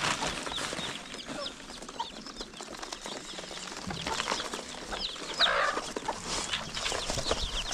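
A brood of broiler chicks peeping: many short, high, falling chirps overlapping one another, with a couple of short rustles about four and five and a half seconds in.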